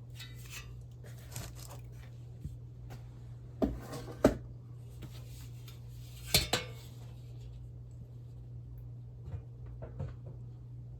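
Metal monitor parts knocking and clattering as they are handled and set down on a work surface: a few sharp knocks, the loudest about four seconds in and again past six seconds, with lighter taps near the end. A steady low hum runs underneath.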